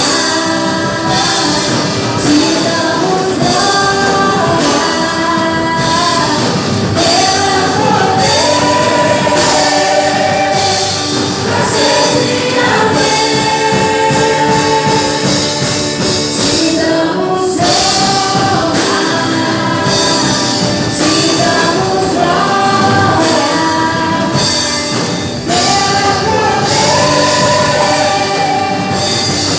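Christian worship song: singing voices carry a melody over a band with a steady drum beat.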